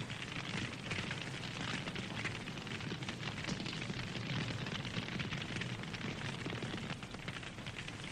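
Campfire burning, with dense, continuous crackling and frequent sharp pops over a low rumble of flames.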